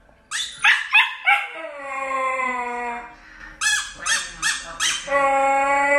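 White husky puppy howling: a few short yips, then a long drawn-out howl that sags slightly in pitch, more short yips, and a second long howl starting near the end.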